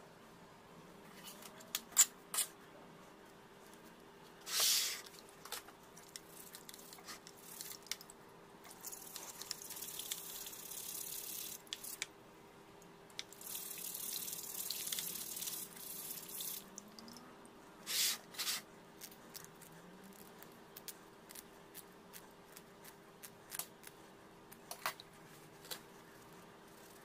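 A brush scrubbing a photopolymer stamp plate in a basin of water, washing out the unexposed polymer, in two long stretches of hissy scrubbing with water splashing. Short clicks and knocks of handling come before and after, with two louder brief noises, one about five seconds in and one past the middle.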